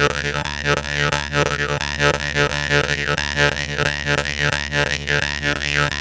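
Jaw harp (vargan, khomus) played in a steady rhythm: a continuous twanging drone plucked a few times a second, its overtones sweeping up and down as the player's mouth shape changes.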